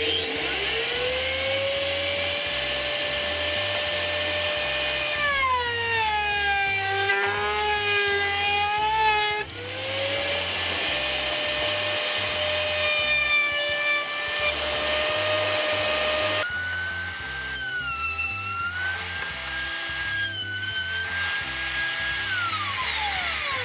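Router mounted under a router table starting up with a rising whine, then running at speed. Its pitch drops about five seconds in as plywood strips are pushed past the bit under a roller hold-down, cutting a shallow groove, and comes back up about four seconds later. It winds down near the end with a falling whine.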